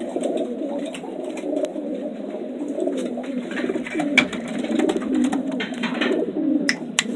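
Homing pigeons cooing in a loft, a steady low warbling throughout, with a few sharp clicks about four seconds in and near the end.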